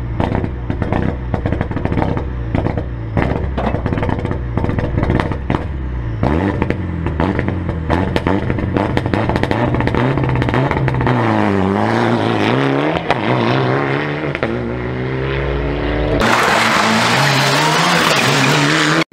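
Mitsubishi Lancer Evolution IX rally car's turbocharged four-cylinder engine running at the start line with irregular crackling pops, then revved up and down over and over. About three seconds before the end the sound cuts abruptly to the car driving past at speed, louder and full of rushing noise.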